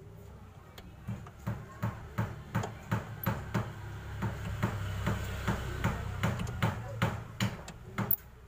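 Repeated sharp knocks of a tool on metal, about two or three a second, over a steady low hum, during work on a jeep's clutch master cylinder mounting.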